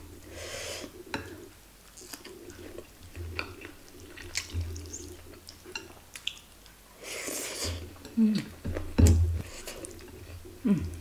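Eating by hand: wet chewing and mouth smacks with scattered small clicks, two short hissing breaths, and a brief hummed 'mm' about eight seconds in, over a steady low hum.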